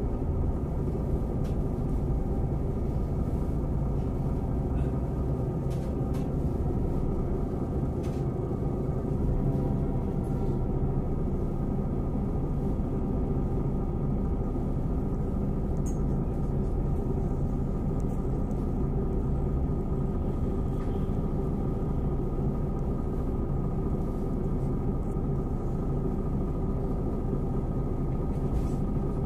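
City bus engine running at a steady pitch with a low rumble, heard from inside the bus.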